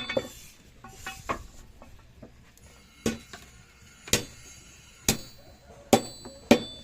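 Hand hammer striking steel in blacksmith forging, each blow with a short metallic ring: a few light taps, then from about three seconds in five sharp strikes roughly a second apart.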